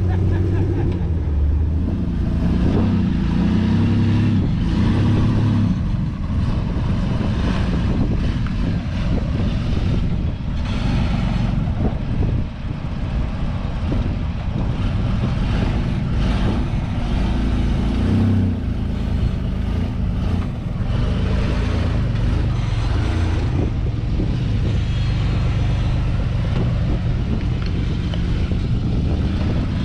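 Off-road rock buggy's engine running and revving up and down unevenly, with scattered knocks and clunks throughout.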